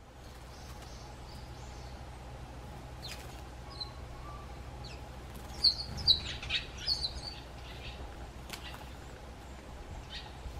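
Eurasian tree sparrows chirping: a quick run of short, high chirps about halfway through, with a few more before and after, over a steady low hum.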